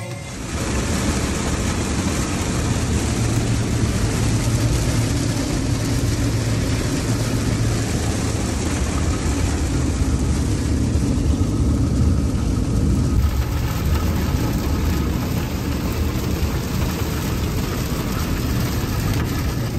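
Steady low engine rumble with a wash of wind and road-like noise, as from a running vehicle.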